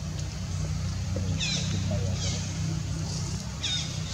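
Three short, high chirping calls, each falling in pitch, over a steady low hum.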